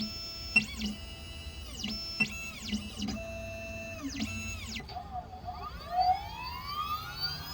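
XHORSE Dolphin XP005 key-cutting machine's stepper motors whirring through short pitched moves that slide down in pitch at each stop. About five seconds in, the cutter spindle starts and spins up in a rising whine.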